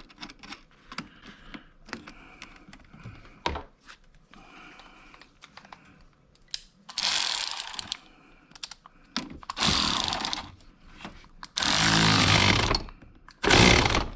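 Light clicks and taps, then a cordless power tool run in four short bursts, driving down a car battery terminal's clamp nut.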